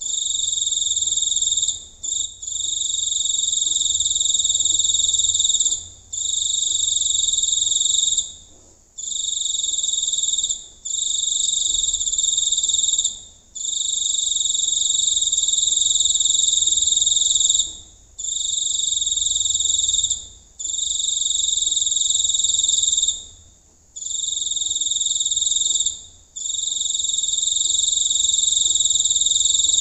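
Giant cricket calling close up: a loud, shrill, unbroken trill. It comes in long phrases of two to five seconds, each swelling in quickly, with brief pauses between them.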